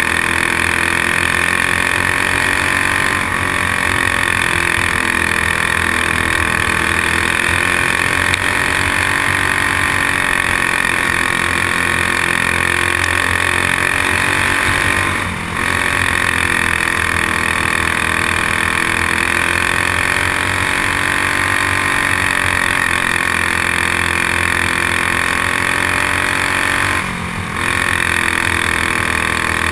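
Racing kart's single-cylinder four-stroke clone engine running hard, heard from onboard. Its pitch rises and falls with the throttle through the corners, with two brief drops in level, about midway and near the end, as the driver lifts off.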